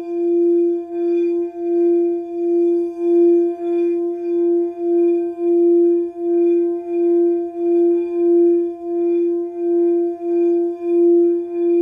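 Singing bowl sustained in one continuous tone, with fainter higher overtones above it; the sound wavers in loudness evenly, swelling and fading about every half second.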